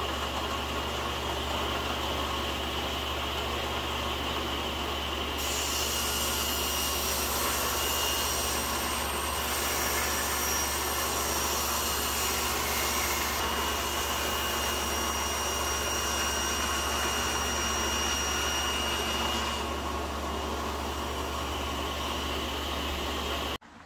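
Table saw running steadily while a strip of wood is ripped on it. The harsher sound of the blade cutting through the wood fills most of the middle, and the saw cuts off suddenly near the end.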